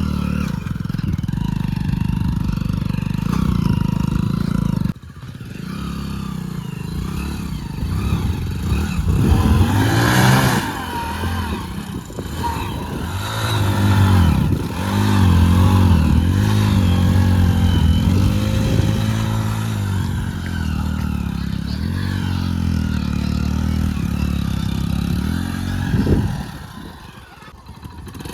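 Hero Splendor Plus motorcycle's small single-cylinder four-stroke engine being ridden hard, its note rising and falling repeatedly as it is revved, with some clatter. The sound drops away suddenly about five seconds in and again briefly near the end.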